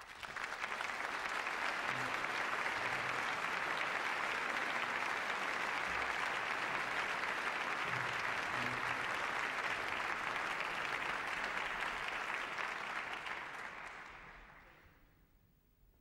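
A large concert audience applauding, steady at first and dying away near the end.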